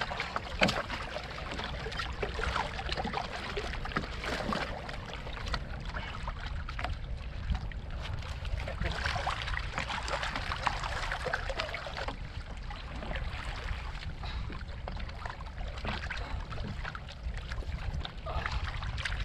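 Water lapping and splashing at the shore in irregular small splashes, over a steady low rumble.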